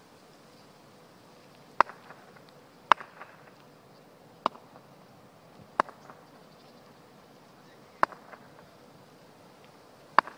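Cricket bat tapped on asphalt, six sharp knocks at uneven intervals, each followed by a small rebound tap.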